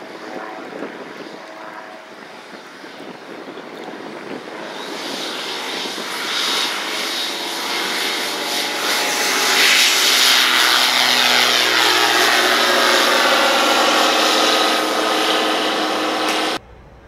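Engine and propeller of a Belite Chipper light aircraft at takeoff power, growing louder as the plane rolls toward and past, then falling in pitch as it goes by and climbs away. The sound cuts off suddenly near the end.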